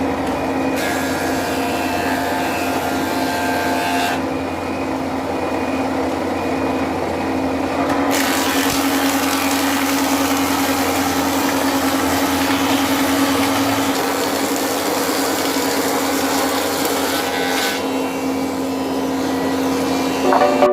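A powered woodworking machine runs with a steady motor hum while working wood. The cutting noise changes several times, about a second, four seconds, eight seconds and eighteen seconds in, as stock is fed through.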